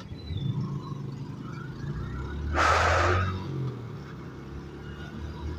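Motorcycle engine running steadily as it is ridden along a wet road, with a brief loud rush of hiss about two and a half seconds in.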